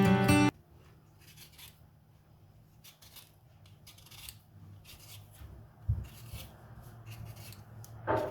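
Acoustic guitar music cuts off half a second in. Faint rustling and scratching follow, with scattered light clicks, a soft thump about six seconds in and a knock near the end.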